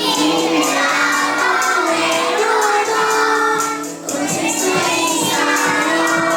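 A group of young children singing together to a musical accompaniment, holding long notes.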